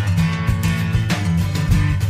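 Background music: strummed guitar over a steady bass line and beat.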